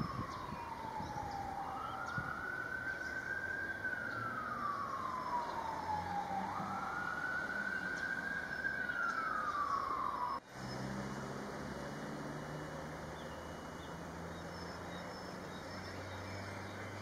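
Emergency vehicle siren wailing in slow sweeps, each rising quickly and falling slowly, three times over, then cutting off suddenly about ten seconds in. A low steady hum follows.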